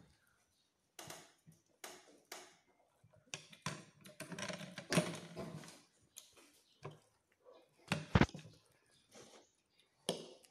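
Children's plastic spoon and fork clicking and scraping against plates, in scattered short strokes, with a louder knock about eight seconds in.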